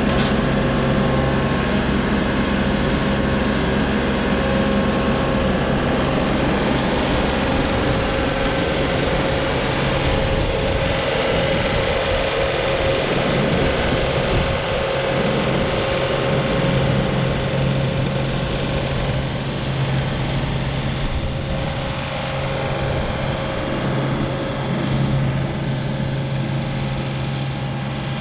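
ASV RT40 compact track loader's diesel engine running under load while it drives a hydraulic Harley rake, whose toothed drum churns through the soil. The machine noise is steady, with a constant hum, and eases slightly in the last third as the loader moves off.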